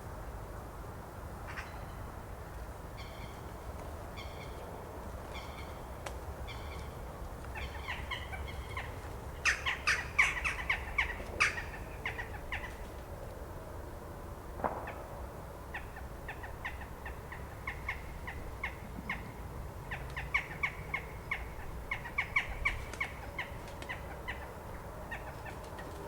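A flock of jackdaws calling at their night roost: many short, sharp calls, sparse at first, thickening into a dense burst of chatter about ten seconds in and again near the end. A steady low rumble runs underneath.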